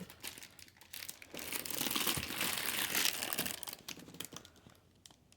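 Packaging crinkling and rustling as it is handled and unwrapped, a dense run of small crackles that is loudest in the middle and dies down near the end.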